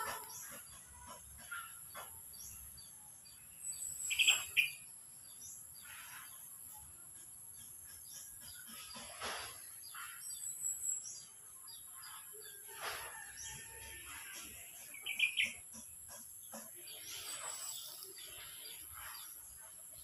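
Small birds chirping outdoors. The loudest short calls come about four seconds in and again near fifteen seconds, with fainter high twitters between them and occasional soft rustling.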